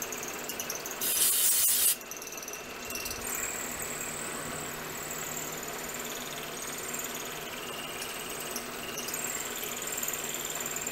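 Milling machine running an end mill through an aluminum vise jaw to cut a magnet pocket, a steady machining noise with a high whine that wavers. About a second in, a loud hiss cuts in for just under a second and stops abruptly.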